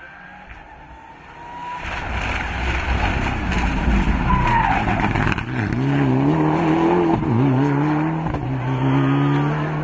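Rally car approaching hard and passing close, its engine note climbing and dropping several times as it shifts gear and lifts off for corners. There is a brief tyre squeal about four seconds in, and the car fades as it goes away near the end.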